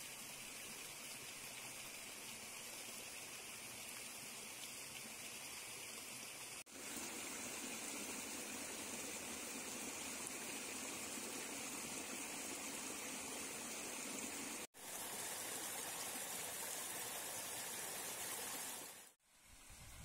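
Steady rush of a mountain stream flowing over rocks. It is broken twice by brief drop-outs, coming back slightly louder after the first, and fades lower just before the end.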